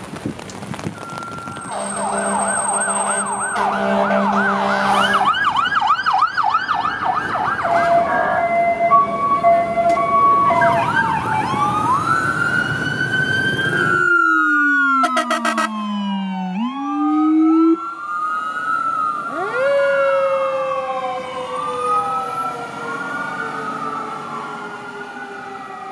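Emergency vehicle sirens. First a fast electronic yelp sounds over steady heavy rain. About halfway through, the rain noise cuts off and several sirens wail together, slowly rising and falling in pitch, one of them a deep tone that slides down and back up.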